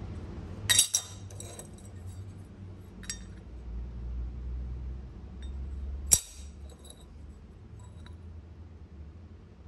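Sharp metallic clinks of a steel sliding bevel gauge knocking against a galvanized steel connector bracket: a quick cluster about a second in, a lighter clink around three seconds, and one sharp clink near six seconds.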